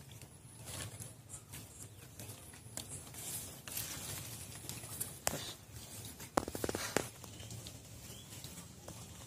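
Rustling and scattered light knocks and clicks from a bamboo pole and mesh fishing net being handled among leafy bushes, with a quick rattling run of clicks about two-thirds through.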